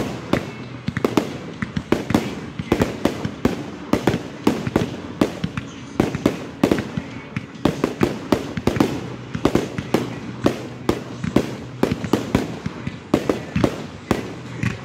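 Aerial firework shells bursting in a dense barrage: sharp bangs follow one another several times a second with no let-up.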